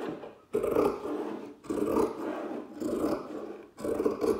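Sharp scissors cutting through cotton fabric stuck to sticky-back plastic: four long snips, about one a second.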